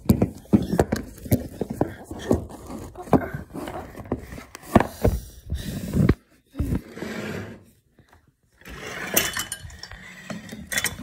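A cardboard toy box with a clear plastic window being handled and turned over by hand: irregular crinkles, taps and clicks of plastic and cardboard, with a denser rustle about nine seconds in.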